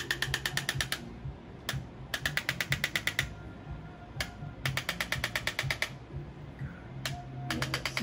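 Handheld electric chiropractic adjusting instrument firing rapid trains of thrusts against the neck: four bursts of about ten clicks a second, each lasting about a second.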